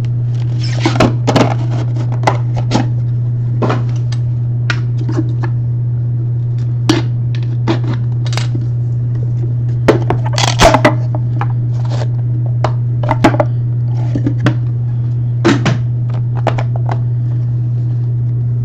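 Sealed trading card boxes and their packaging being pried and torn open by hand: scattered crinkles, clicks and scrapes, over a steady low hum.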